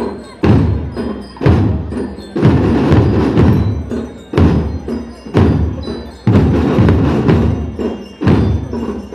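A school marching band's drums playing a march, the bass drum hitting heavily about once a second with other drums and a little metallic ringing between the beats.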